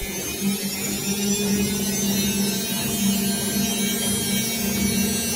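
Whirlpool FL5090/A front-loading washing machine running in its spin cycle: a steady electrical hum over an even hiss, with no change in pitch.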